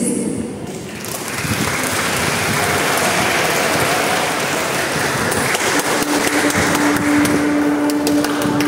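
Audience applauding, an even clatter of many hands. About six seconds in, a single steady held note starts under the clapping.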